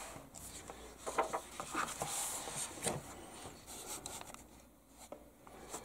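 Paper pages of an instruction booklet being turned and rubbed by hand: a few brief rustles and swishes.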